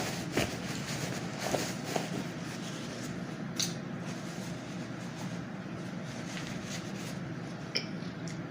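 A person eating with the mouth close to the microphone: chewing and a few short wet smacks and clicks, over a steady low hum.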